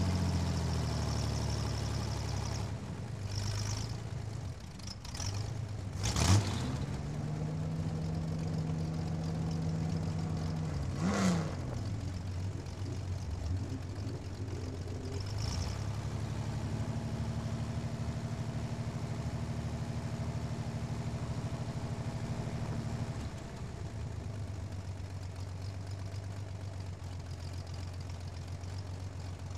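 Race car engine idling, heard from the onboard camera, with a couple of quick rev blips about six and eleven seconds in. It then settles to a steady idle that eases off slightly in level near the end.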